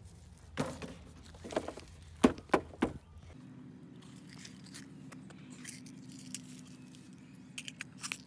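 Handling noises: several sharp knocks and clicks in the first three seconds. A faint steady hum follows, and a quick run of light clicks near the end as a Daisy 880 Powerline air rifle is handled and loaded.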